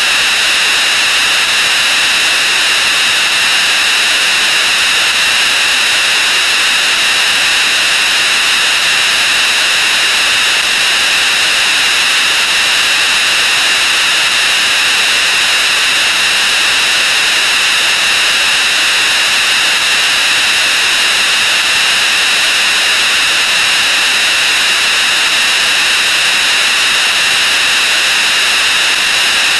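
Loud, steady wall of harsh hissing noise: many sound effects layered and sped up until they blur into one unbroken din, strongest in the upper-middle range.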